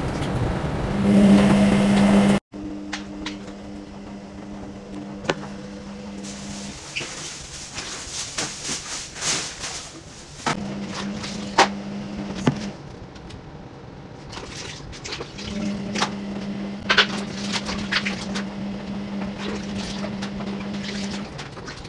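Water sloshing and splashing in a plastic tub as hands wash dates, with drips and sharp little splashes as handfuls are lifted. A loud rush of noise near the start cuts off abruptly, and a steady low hum comes and goes three times.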